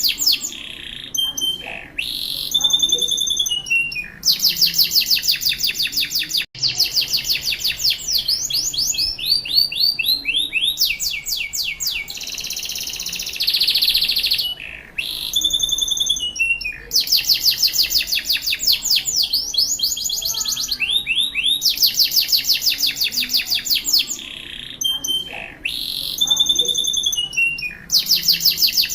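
Domestic canary singing: long, rapid high-pitched trills of repeated notes, phrase after phrase, some sliding down in pitch, broken by short pauses.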